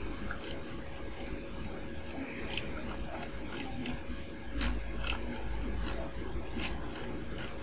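Keys and buttons of a grandMA1 lighting console being pressed, about ten short clicks at irregular intervals, over a steady low hum.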